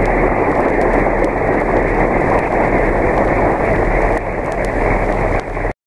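Audience applauding, heard on an old recording with little treble and a low steady hum underneath; it cuts off abruptly near the end.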